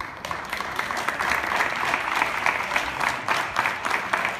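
Audience applause, many hands clapping at once, breaking out suddenly and carrying on steadily.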